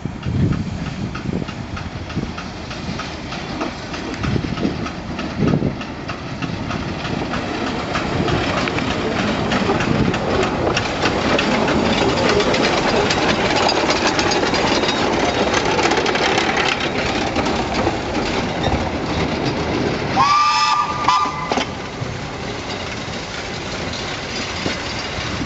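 Narrow-gauge steam tank locomotive No. 778 working past with its train: exhaust and the clatter of wheels and wagons, getting louder as it passes close. About twenty seconds in the locomotive's whistle blows briefly.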